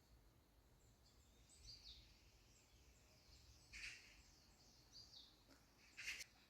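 Faint bird chirping: a few short, high chirps that drop in pitch, with two brief, louder high calls about four and six seconds in.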